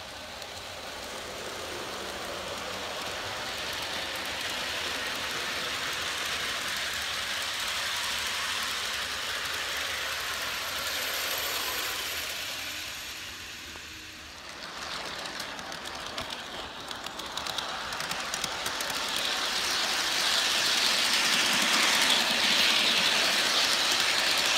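Aristocraft G-scale U25B model diesels and their freight cars rolling past on garden track: a rumble of wheels on rails that swells and then fades. From about halfway, a louder, closer rattling clatter with rapid clicks rises, heard from a camera riding on one of the cars.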